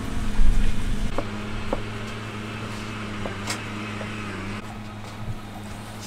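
A few light wooden knocks and taps as hand-cut wooden joint pieces are handled and set down on a wooden workbench, with a dull thump near the start. A steady low mechanical hum runs underneath.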